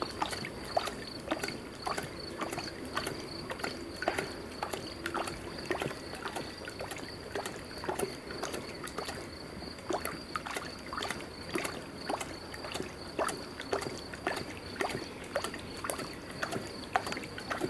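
Lion lapping water with its tongue while drinking: a steady run of short wet laps, about two or three a second.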